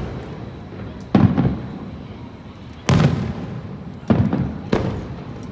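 Aerial fireworks shells bursting overhead: about six deep booms in a few seconds, two of them close together after about a second and three more in quick succession near the end, each dying away in a rumbling echo.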